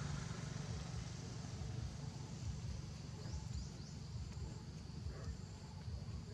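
Outdoor background noise: a steady low rumble that wavers irregularly, with a few faint, short high chirps about three seconds in.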